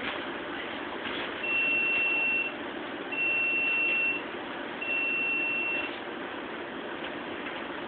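Three long electronic beeps, each about a second and evenly spaced, over the steady hum of aquarium equipment.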